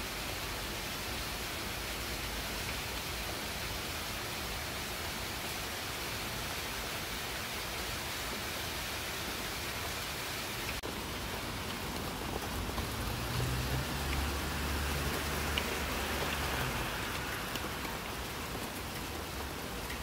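Steady rain falling on leafy shrubs, an even hiss. A low rumble swells in a little past the middle for a few seconds and then fades.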